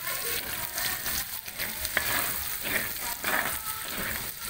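Minced garlic and shallots sizzling in hot oil in a metal wok, stirred with a spatula that gives a few short scrapes against the pan.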